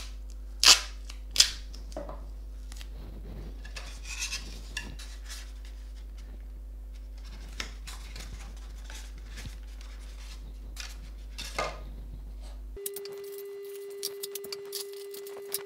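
Adhesive tape pulled off the roll and torn twice in quick succession about a second in, then soft rustling and scraping as tape is pressed onto a polystyrene box and the box is handled. A faint steady tone sets in near the end.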